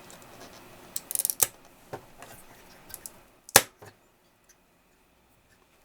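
A chip being pressed into its socket on a Commodore C16 circuit board: a few small clicks and scrapes as the pins are worked in, then one sharp snap about three and a half seconds in as it seats.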